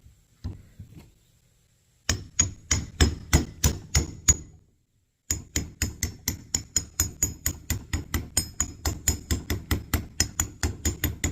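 Rapid hammer taps on a truck power steering pump being reassembled, driving a part back into place around the pump shaft. The taps come in two runs, the second faster and longer after a brief pause, and each tap has a light metallic ring.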